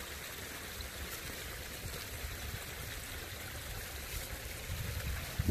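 Spring-fed runoff stream flowing, a steady even rush of water. A few low knocks near the end.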